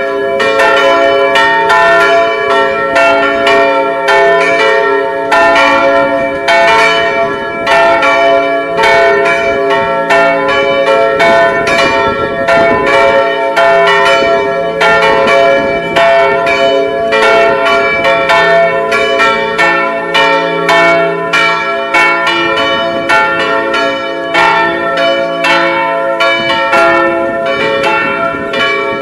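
Three swinging church bells in an open tower frame ringing together, their strikes overlapping in a continuous, irregular peal at a few strokes a second, each stroke ringing on.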